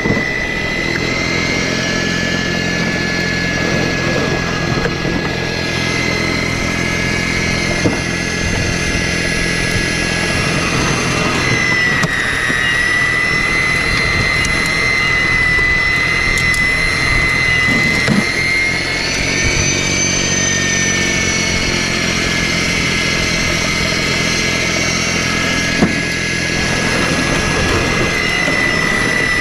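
Battery-powered self-propelled snowblower running under load, its electric motor giving a steady high whine that shifts slightly in pitch as the auger churns through snow and throws it from the chute.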